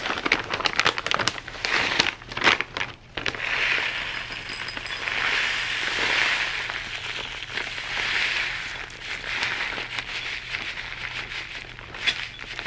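Sandy, gritty Pinguicula potting mix poured from a plastic bag into a bowl. For the first three seconds the bag crinkles as it is handled, then the mix streams in as a steady gritty hiss that swells and eases several times.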